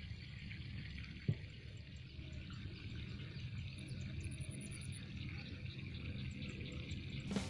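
Faint outdoor ambience by a flooded rice paddy: a low steady rumble with a light hiss, and a single short knock about a second and a half in.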